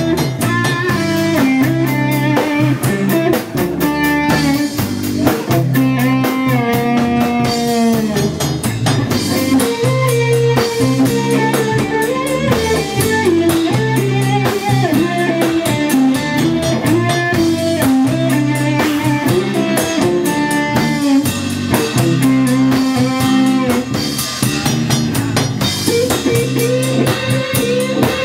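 Live instrumental jazz-rock fusion band playing: electric guitar lead lines over a driving drum kit, loud and unbroken.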